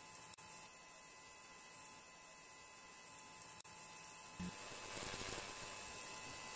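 Steady electrical hum and hiss with a few faint high steady tones, slowly growing a little louder.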